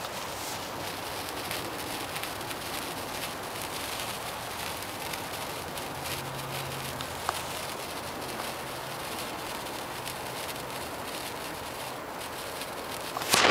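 Gold sparkler burning with a steady fizzing crackle of tiny sparks. A brief louder sound comes right at the end.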